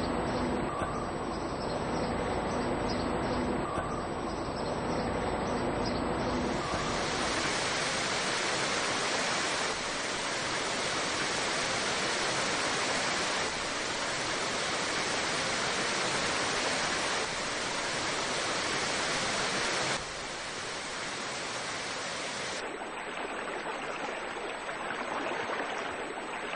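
Rushing river water, a steady even hiss that becomes fuller and brighter about six seconds in and then shifts abruptly in level and tone several times.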